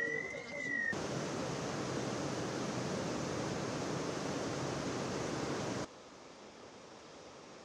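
Fast-flowing floodwater rushing down a street, a loud, even rush of water. It starts just after a wavering siren cuts off about a second in. Near six seconds it drops suddenly to a quieter, steady hiss of water.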